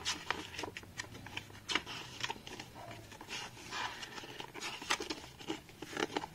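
Pages of a paper rulebook being flipped through by hand: a run of irregular paper rustles and flaps as page after page is turned.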